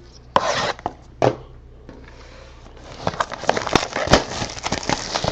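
Plastic wrapping on a trading-card box being torn and crinkled. A few short rips come first, then from about three seconds in a dense stretch of crackling rustle.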